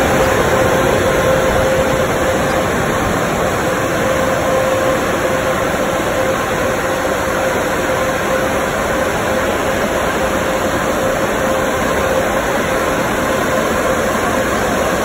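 Bank of Belanger car wash dryer blowers running, a loud steady rush of air with a steady mid-pitched tone through it.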